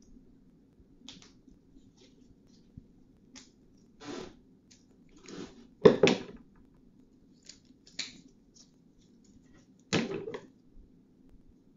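Handling noises from a dye-soaked tie-dye fabric bundle being untied: scattered rustles and small clicks, with two louder knocks, about six and ten seconds in, as a gloved hand sets something down on the table.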